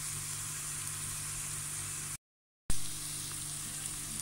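Sliced onions and green peppers sizzling in oil in a stainless steel pot, a steady hiss as they sauté until they turn pinkish. The sound drops out completely for about half a second around two seconds in.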